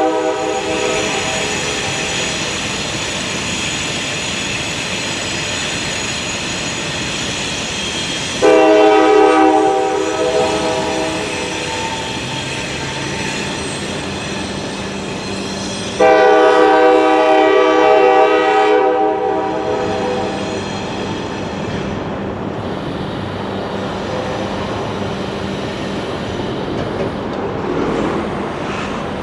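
Norfolk Southern freight train rolling past, its locomotive horn sounding: a blast that cuts off in the first moment, then two long blasts of about three to four seconds each, the first about eight seconds in and the second about sixteen seconds in. The steady rumble of the locomotives and cars continues throughout.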